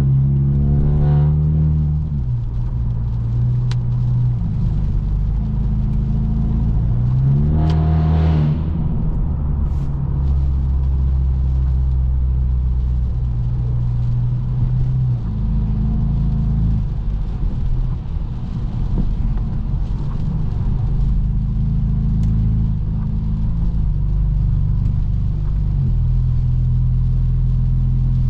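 Straight-piped BMW F30 328i, its tuned 2.0-litre turbocharged four-cylinder droning at a steady cruise. About eight seconds in the revs climb briefly and fall back, and about halfway through the engine note steps down to a lower pitch.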